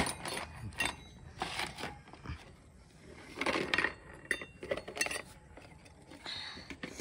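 A tiny spoon clinking and scraping against miniature cooking pots and utensils in scattered, irregular taps.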